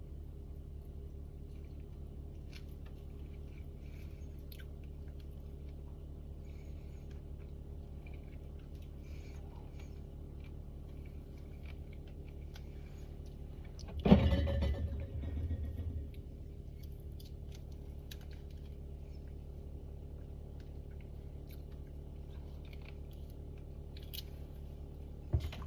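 Refrigerator running with a steady low hum and faint scattered ticks. About halfway through, a sharp loud knock is followed by about two seconds of rattling, and another short knock comes near the end.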